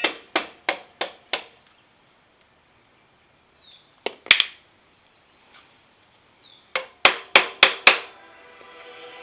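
A series of sharp, ringing knocks in quick runs of about three a second: five near the start, a double knock about four seconds in, and five more near the end, with short silences between.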